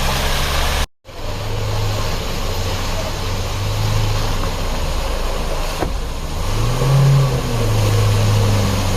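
Car engine running steadily, revving up briefly about seven seconds in and settling back. The sound cuts out for an instant about a second in.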